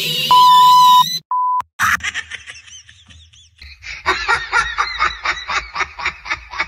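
Two censor bleeps, a steady 1 kHz beep of about two-thirds of a second and then a short one, followed by fast, high-pitched, voice-like chatter.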